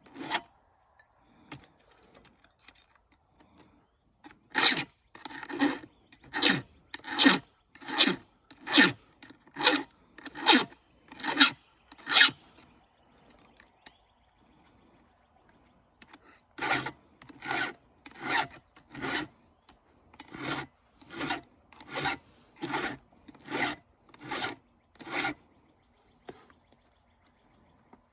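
Hand file being pushed across chainsaw chain teeth, a rasping stroke a little under once a second, with a few swipes on each tooth. It comes in two runs of about a dozen strokes with a pause of about four seconds between them.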